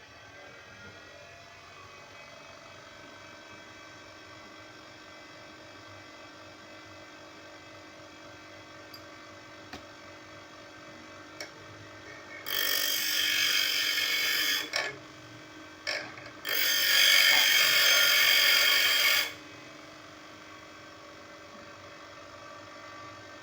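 Nankai 6-inch bench grinder running with a steady, quiet motor hum, interrupted twice by loud, harsh grinding of about two and three seconds as a piece is held to the wheel.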